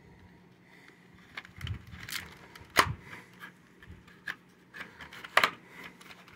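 Small grey cardboard box being handled and pried open by hand: scattered cardboard scrapes and taps, with sharp clicks a little under three seconds in and again about five and a half seconds in.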